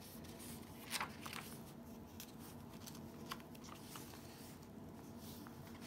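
Faint rustling and light taps of paper as the pages of a junk journal and the paper cards tucked in it are handled and turned, a slightly sharper rustle about a second in, over a low steady background hum.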